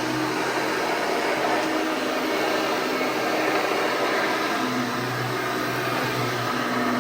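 1988 Hoover Elite 600 upright vacuum cleaner running steadily: an even motor whir and rush of air over a low hum.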